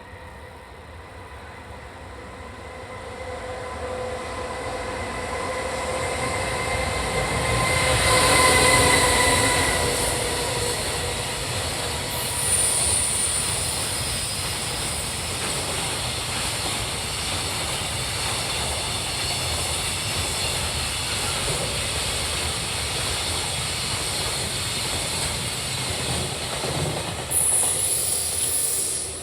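JR Freight train passing through a station at speed. The locomotive comes in with a whine that drops slightly in pitch as it goes by, followed by a long, steady run of wagon wheel noise and rumble. A high squeal starts about halfway through and comes back louder near the end.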